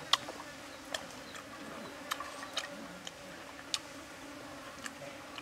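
Close-up eating sounds of a man chewing fried pig liver: irregular sharp clicks about once a second, over a faint steady hum of insects.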